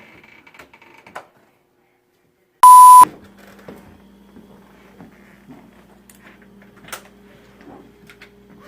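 A single loud, steady electronic beep lasting under half a second, about two and a half seconds in, right after a moment of dead silence. A faint steady low hum follows.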